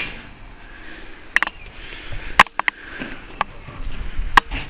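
Footsteps on a debris- and dropping-strewn concrete floor: sharp crunching clicks, about one a second, over a faint hiss.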